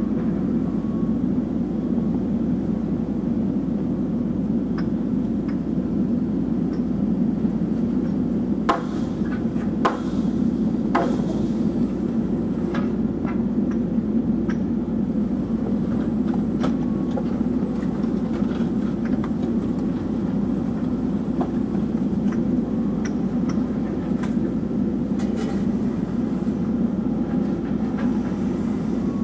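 Excavator's diesel engine and hydraulics running steadily, heard from inside the cab while the machine lifts and swings a concrete block on its hook. A few sharp knocks come about nine to eleven seconds in.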